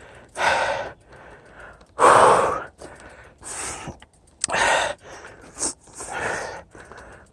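A man breathing hard from exertion: heavy, breathy gasps close to the microphone, about six breaths at roughly one every second to second and a half.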